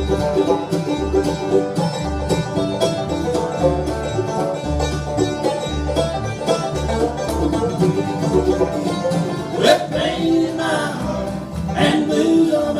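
Bluegrass band playing live, banjo to the fore over guitar and a steady bass pulse about twice a second.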